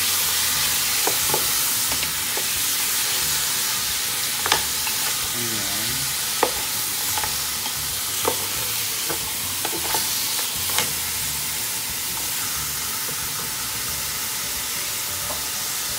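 Beef shanks searing in hot oil in a pot, a steady sizzle, with a wooden spoon stirring and knocking sharply against the pot about half a dozen times.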